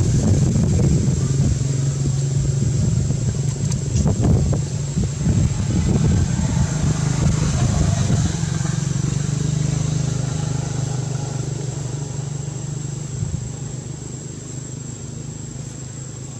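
An engine running steadily with a low hum that fades gradually over the second half.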